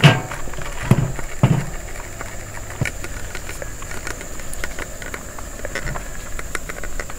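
Three knocks of an aluminium steamer pot being handled in the first second and a half, then scattered light ticks and scraping as freshly steamed rice is tipped from the pot into a wooden steamer basket lined with banana leaf.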